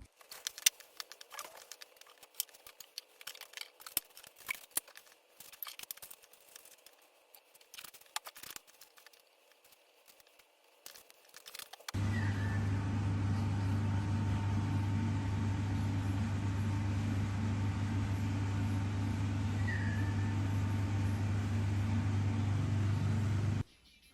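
Scattered clicks and crinkling. About halfway through, a loud steady low mechanical hum starts abruptly, then cuts off suddenly near the end.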